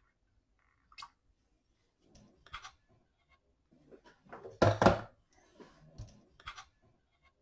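Bench handling sounds as the soldering iron and hands are moved off a circuit board: a sharp click about a second in, a few light knocks and rustles, and one louder thump near the middle.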